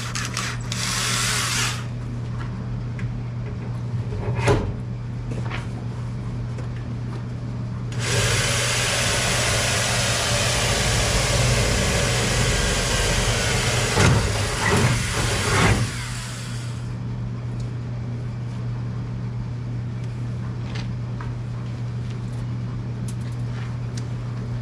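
A handheld power drill runs in two spells, briefly at the start and then for about eight seconds in the middle, working a bolt hole in the tool chest's sheet steel. There are a few knocks near the end of the longer run, and a steady low hum underneath throughout.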